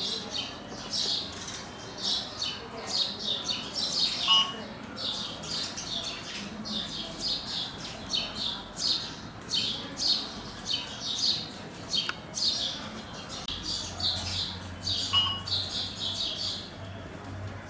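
A flock of house sparrows chirping as they feed: many short, quick chirps overlapping without a break.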